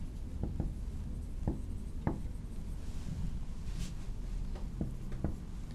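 Whiteboard marker writing on a whiteboard: a scatter of short, faint strokes and taps of the tip against the board.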